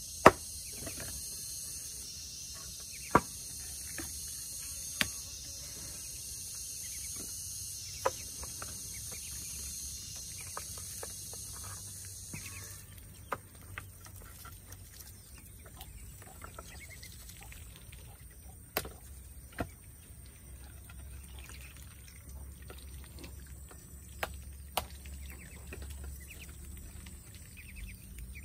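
Sharp single knocks every few seconds, some in close pairs, over a steady background with a high hiss that cuts off suddenly about halfway through.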